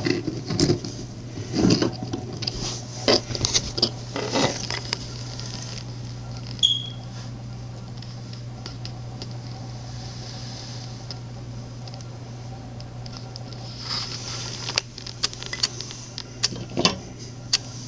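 Handling noise: rustling and light clicks as a necklace cord and the camera are moved, in two spells at the start and near the end, over a steady low hum. A short, high tone sounds once about seven seconds in.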